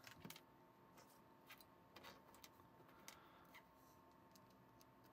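Small plastic Lego pieces being handled and pressed together: a handful of faint, sharp clicks scattered through the first four seconds.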